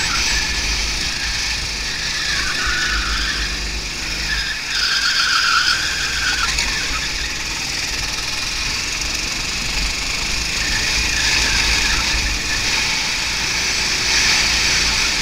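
Go-kart engine running under racing throttle, heard from a camera mounted on the kart, its note swelling and easing through the corners, with heavy wind rumble on the microphone.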